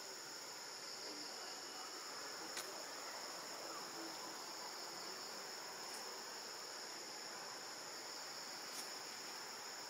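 Steady, high-pitched chorus of insects droning without a break, with two short clicks, one about two and a half seconds in and one near the end.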